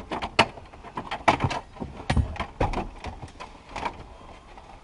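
Irregular clicks, knocks and rattles of hands and tools working on a pickup truck's partly dismantled dashboard, with a sharp knock a little over a second in.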